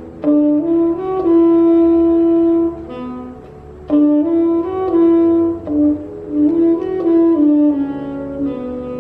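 Tenor saxophone playing a slow melody in three phrases of held notes, the last phrase ending about eight seconds in.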